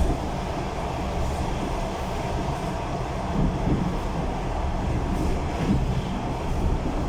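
Passenger train running on the rails: a steady low rumble of the wheels and carriage, with a few faint knocks of the wheels over the track.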